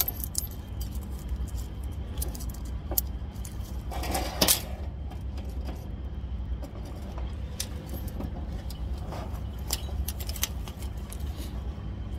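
Clicks, knocks and small rattles of an MSA Comfo Classic half-mask respirator being handled and its cartridges turned, with a louder knock about four and a half seconds in, over a steady low rumble.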